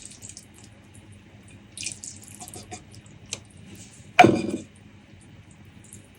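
Close-miked eating sounds: scattered small wet clicks and smacks, with one louder knock about four seconds in.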